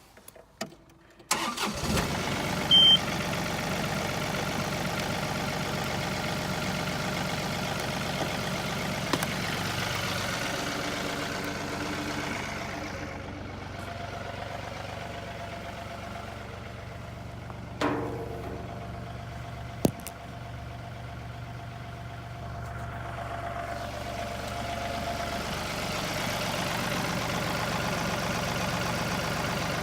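John Deere 2032R compact tractor's three-cylinder diesel engine starting about a second in after a few clicks, then running steadily. It runs quieter for a stretch in the middle and picks up again near the end, with a couple of sharp knocks along the way.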